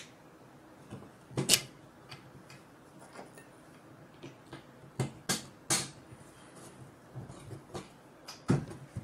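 A few short, light clicks and taps, spread out with quiet between them, from small steel bolts and 3D-printed plastic parts being handled and fitted together by hand. The last one comes near the end as the assembly is turned over.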